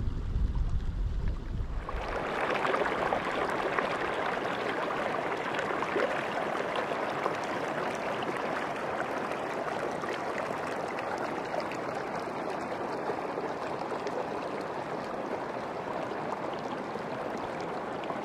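Mountain stream flowing steadily. Wind rumbles on the microphone for about the first two seconds, then stops.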